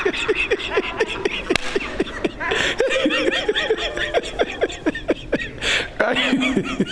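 A man laughing, a long run of short laughs one after another.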